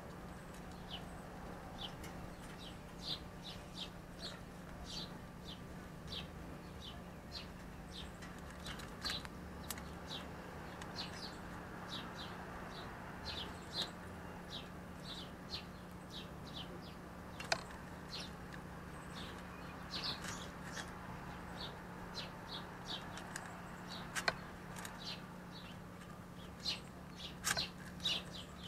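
Small birds chirping, short high chirps repeated every second or so, with a few louder sharp clicks and a steady low hum underneath.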